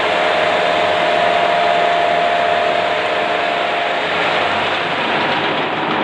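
Lathe running at its top spindle speed of 1000 rpm: a loud, steady whirr of motor and gearing with a steady whine that drops away about four seconds in.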